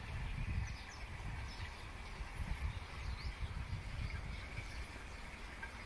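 Outdoor ambience: faint, scattered bird chirps over a low, uneven rumble of wind on the microphone.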